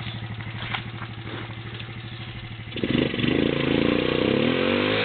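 Quad ATV engine idling with an even pulse, then opened up about three seconds in and held at high revs, its pitch wavering, while the quad sits stuck in mud.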